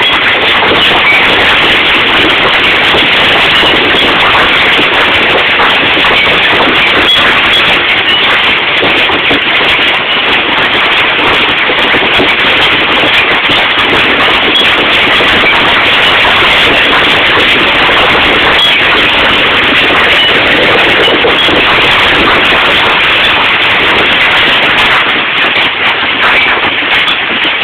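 Hailstones pelting down in a loud, steady, dense clatter of countless small impacts.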